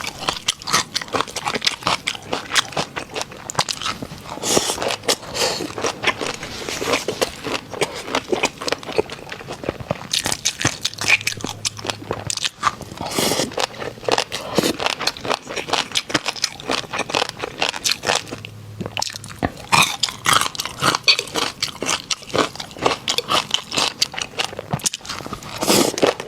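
Close-up crunching of a person biting and chewing crunchy snacks, a rapid irregular run of crisp cracks.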